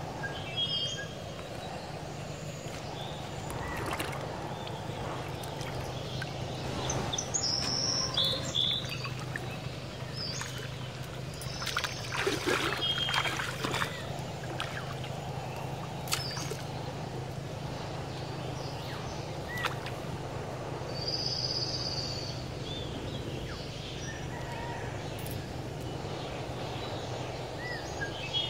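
Birds chirp now and then over a steady low hum. Around the middle there is a cluster of water sloshing and splashing as people wade into a shallow pond.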